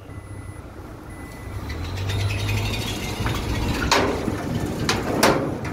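Nissan Altima's 2.5-litre engine pulling the car up a car-carrier's steel loading ramp, its low rumble growing louder, with two sharp metallic clanks about four and five seconds in as the car rolls over the ramp.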